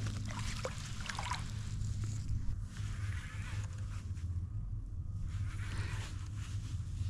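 Water lapping and sloshing against a kayak hull, with a few small clicks and knocks early on, over a steady low hum.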